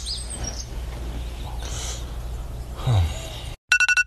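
Phone alarm going off near the end, a rapid run of electronic beeps. Before it there is a steady low hum, with a few bird chirps at the start and a short falling sweep shortly before the alarm.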